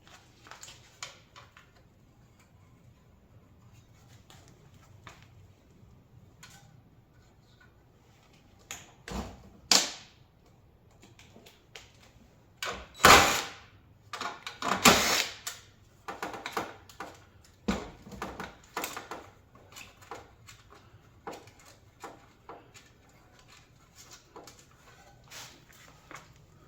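Scattered clicks, clanks and knocks of metal parts and hand tools being handled while a coffee-machine warmer burner is taken apart, with two louder knocks about 13 and 15 seconds in.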